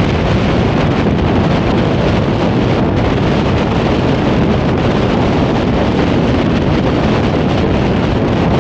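Loud, steady wind noise on the microphone of a car-mounted Insta360 One X2 camera as the car drives along, with road rumble underneath.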